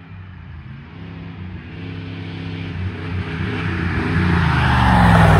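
Pickup truck with its muffler cut off, running on open exhaust as it drives up the road toward and past the listener: the exhaust note grows steadily louder and is loudest as the truck goes by near the end.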